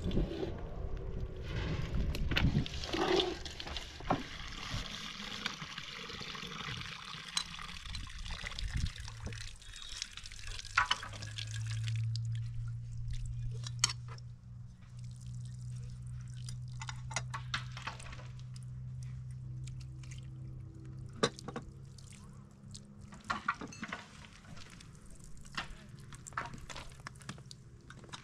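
Water running from the tap of a plastic water storage tank and splashing into a metal kettle, fading after about eight seconds. A steady low hum follows, with scattered light knocks and clinks as the kettle is handled.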